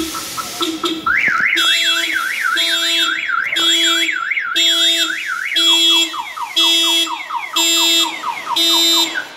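Aftermarket Directed car alarm siren on a Mercedes-Benz Metris van, triggered by opening a door while the system is armed. Quick beeps give way about a second in to a warbling up-and-down siren, which switches near six seconds to repeated falling sweeps with pulsed beeping, then stops near the end.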